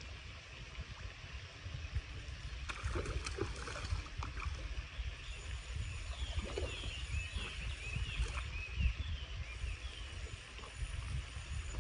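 Outdoor ambience by a pond: wind rumbling on the microphone, with a bird chirping a quick series of short notes in the middle and a few faint clicks.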